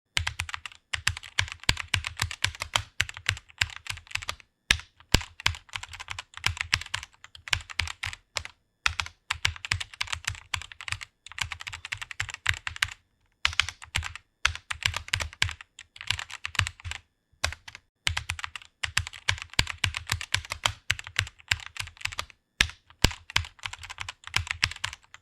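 Typing on a computer keyboard: fast runs of keystrokes broken by short pauses.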